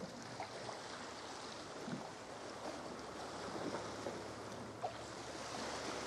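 Sea water lapping and sloshing around a kayak and against the foot of a rock cliff, with small splashes and clicks and a little wind on the microphone.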